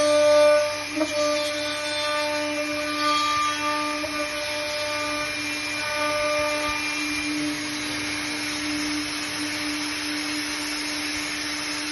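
High-speed milling spindle of a CNCP-503 CNC profile machine running with a steady high whine. A rasping cutting noise swells and fades as the cutter works through PVC or aluminium window profile.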